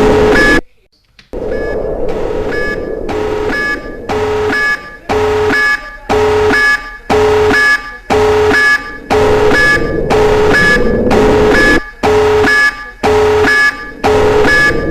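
Electronic nuclear alert alarm: a two-tone pulse repeating about twice a second. It drops out briefly about a second in, then resumes.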